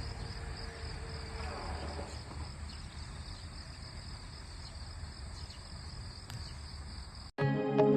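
Steady, high-pitched insect chirring over a low rumble of outdoor background noise. About seven seconds in it cuts off abruptly and music starts.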